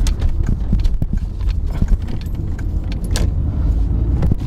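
Mark IV VW Golf pulling away and driving, heard from inside the cabin: a steady low rumble of its 1.6-litre four-cylinder engine and road noise, with scattered sharp clicks and light rattles throughout.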